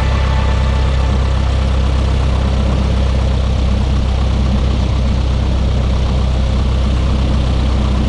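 1978 Cessna 172 Skyhawk's four-cylinder piston engine and propeller running steadily at low power on the ground, a deep even drone.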